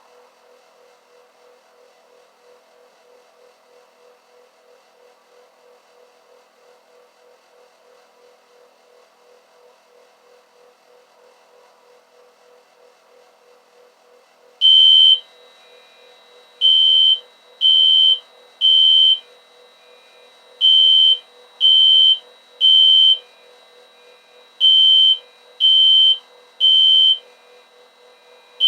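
System Sensor SpectrAlert Classic fire alarm horn sounding a loud, steady high-pitched tone in the temporal-three evacuation pattern: three short beeps about a second apart, a pause, then three more, repeating. It starts about halfway in; before that there is only a faint steady hum.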